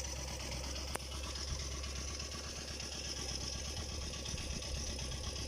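Kubota DC105X combine harvester's diesel engine idling steadily and smoothly, its injection pump still running quietly after more than 1600 hours. A single sharp click comes about a second in.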